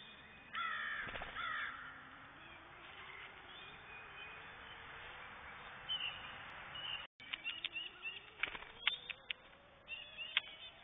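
Blue jays giving two harsh, rasping jay calls about half a second in, followed later by a scatter of light taps and clicks.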